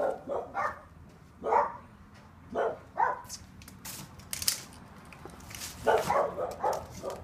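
A dog barking off and on: single barks a second or so apart, then a quicker run of barks about six seconds in.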